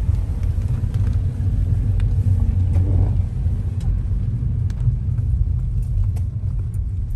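Road noise of a moving car heard from inside the cabin on a wet road: a steady low rumble, with a few faint scattered ticks.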